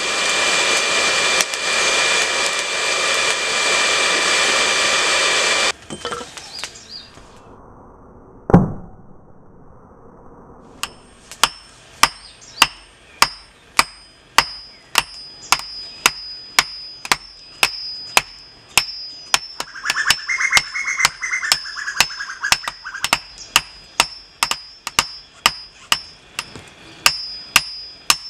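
Charcoal forge with air blown through the coals: a loud steady rush with a faint whine in it, cutting off about six seconds in. A single heavy thud follows. From about eleven seconds a hammer strikes a red-hot steel bolt on an anvil, about two blows a second, each with a short ringing note.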